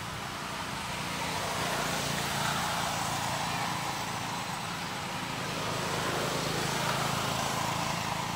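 Steady rumble of distant road traffic with a low engine hum, swelling gently about two seconds in and again around six to seven seconds.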